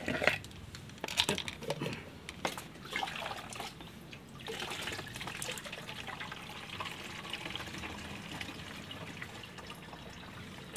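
Diluted liquid fertiliser poured from a plastic measuring jug into a plastic pump sprayer bottle, a steady pouring stream from about four seconds in. It is preceded by a few clicks and knocks of the plastic jug and sprayer being handled.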